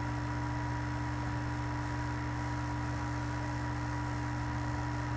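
Steady electrical hum with a faint even hiss, unchanging throughout.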